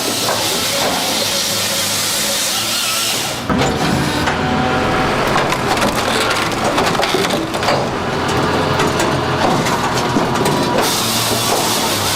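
Wood-chipping and crushing machinery chewing through wood, with splintering and cracking over a steady engine hum. The sound changes abruptly about three and a half seconds in and again near the end.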